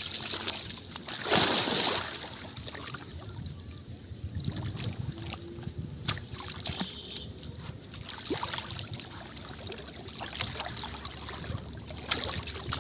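River water splashing and sloshing, with one louder splash about a second and a half in, then quieter lapping with a few small clicks.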